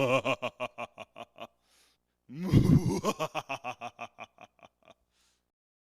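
A person's laugh, heard twice. Each starts with a loud wavering cry, then breaks into a quick run of short 'ha' pulses that fade away; the second begins about two seconds in.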